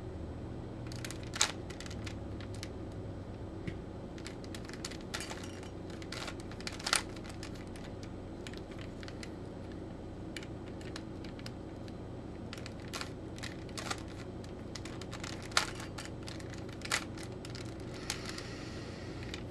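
Plastic Rubik's Cube layers being twisted by hand: irregular rapid clicking and rattling, with a few sharper clacks, over a steady low hum.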